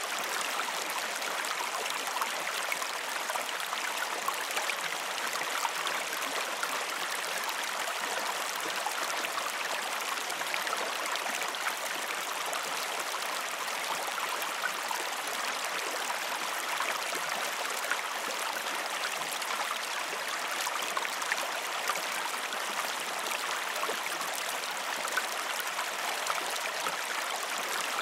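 Gentle creek flowing: a steady, even rush of water with fine trickling and splashing.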